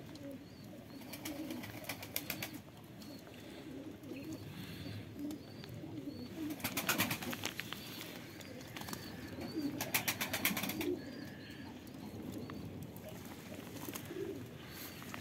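Domestic pigeons cooing, with three bursts of rapid wing-flapping and splashing as they bathe in a shallow puddle.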